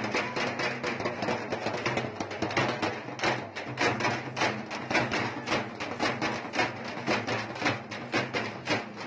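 Processional drums beaten hard in a fast, steady rhythm, about five strikes a second.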